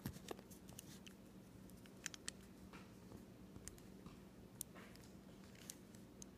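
Near silence with a few faint, scattered clicks from a plastic-and-metal Beyblade spinning top being handled in the fingers.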